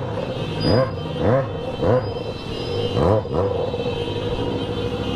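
Motorcycle engine revved in four quick throttle blips over the first three seconds or so, each a short rising sweep, then running steadily.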